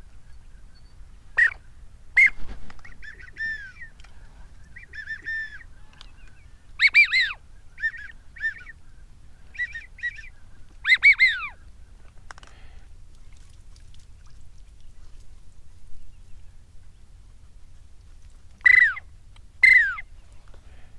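Duck calling: short, loud honking quacks in small bursts, most of them in the first half and the loudest around seven and eleven seconds in, with a last pair near the end.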